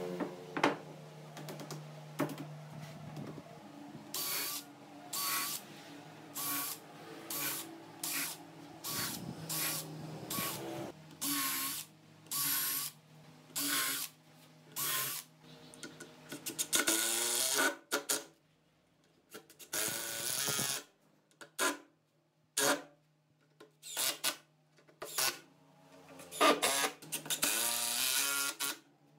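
A few light wooden knocks, then a cordless drill and impact driver driving screws into wood. The motor whirs in short bursts about once a second, with a few longer runs.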